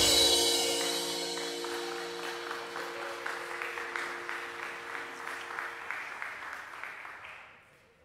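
Applause after a song, with the song's final held chord ringing out and fading beneath it. The clapping slowly dies away and the sound drops to silence shortly before the end.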